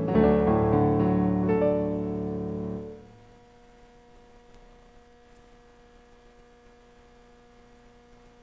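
Piano playing sustained chords, dying away about three seconds in, after which only a faint steady electrical hum remains.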